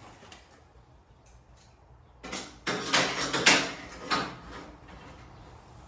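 Steel garage door panel and hinge hardware being handled: a cluster of loud clattering knocks and scrapes about two seconds in, after a couple of quieter seconds with small clicks.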